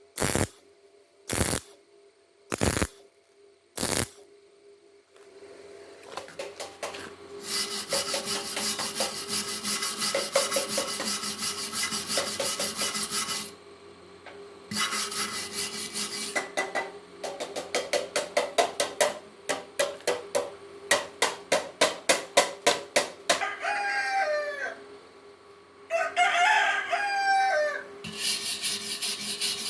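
MIG welder arc on galvanized steel, crackling in bursts: a few short tacks at first, then a longer continuous bead, then rapid pulsed stitching. A rooster crows twice near the end.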